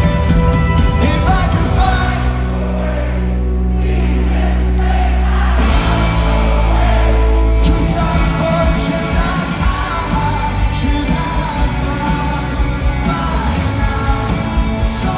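Live rock band playing with a lead vocal. About two seconds in, the beat drops away under a held low chord, and the full band with drums comes back in about halfway through.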